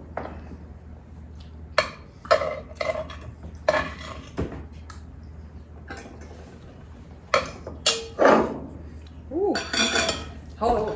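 Metal serving utensils clinking and knocking against a cast iron Dutch oven and plates as food is dished out: a string of separate short clinks, several of them in the first half.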